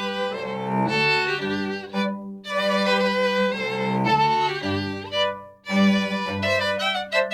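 A Baroque string ensemble playing live: violins carrying the melody with vibrato over a sustained cello bass line, with a brief break between phrases late on.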